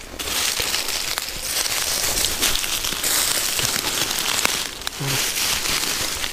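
Footsteps crunching through dry fallen leaves and twigs, a continuous crackling rustle underfoot.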